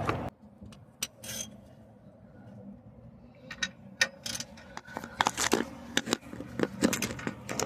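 Hand tools clicking and clinking on metal as a wrench works the brake caliper bracket bolts loose by hand. A few scattered clicks at first, then a denser run of sharp clicks from about halfway through.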